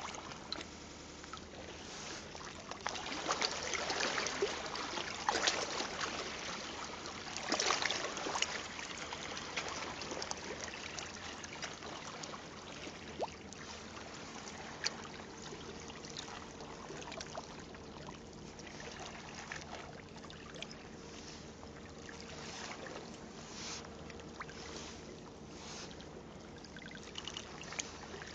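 Shallow water lapping and splashing around a sea bass held in it by hand, with louder sloshing about three to six and seven to nine seconds in.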